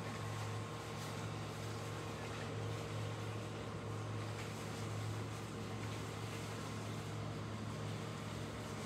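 A steady low mechanical hum, even throughout, with a faint higher whine above it.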